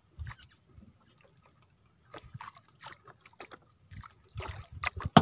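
Light clicks and short wet handling noises as a small fish is worked off a handline hook in a wooden outrigger boat. The noises come thicker and louder near the end, closing on one sharp knock.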